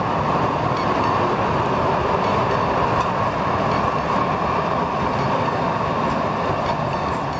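Light rail train passing close by on street track: a steady rumble of the cars rolling over the rails, with a hum running through it.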